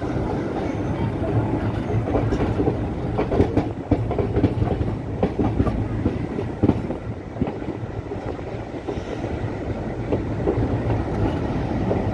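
Indian Railways passenger coach running into a station, heard from aboard: a steady rumble with irregular clacks of the wheels over rail joints.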